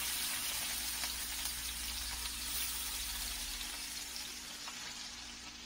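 Chopped onions sizzling steadily in hot oil in a stainless steel wok, easing a little near the end.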